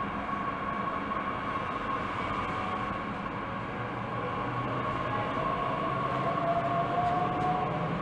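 Electric regional train pulling out along the near platform track, its running noise carrying a steady whine. A second whine rises slowly in pitch over the last few seconds as it gathers speed.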